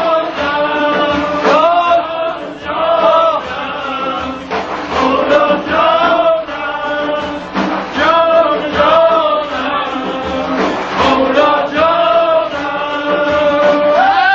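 Male voices chanting a Yarsani devotional song in long held, bending phrases, over rapid tanbur strumming.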